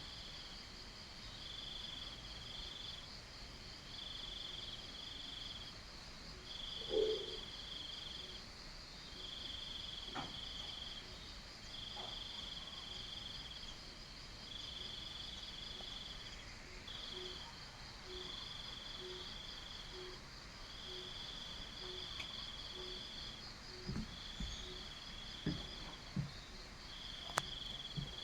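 Crickets and cicadas trilling: a high chirring in repeated phrases about a second long with short gaps, over a steady higher buzz. A brief low sound about seven seconds in and a few soft knocks near the end.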